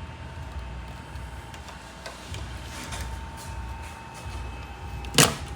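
A plastic wiring fastener being worked open by hand: faint handling and rubbing, then a single sharp snap about five seconds in as it pops free without being cut. A faint steady whine runs underneath.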